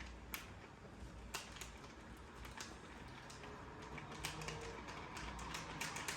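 Faint, scattered clicks and taps of measuring spoons and a baking powder container being handled. A few clicks come at first, and they grow quicker over the last couple of seconds.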